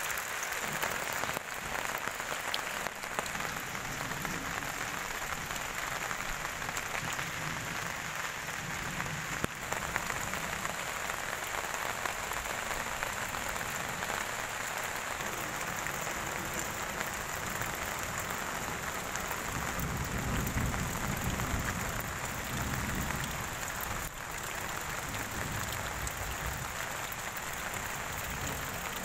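Heavy rain falling onto puddles and muddy ground: a steady, dense hiss of splashing drops. A brief low rumble comes in about two-thirds of the way through.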